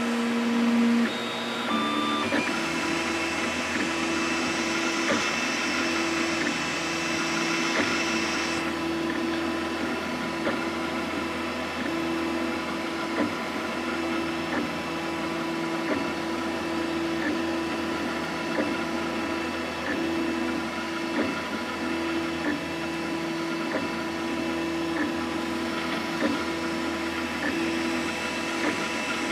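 FlashForge Creator X 3D printer printing its first layer: the stepper motors whine in steady tones that break off and resume with each change of move, over a steady hiss. The hiss drops away about eight seconds in.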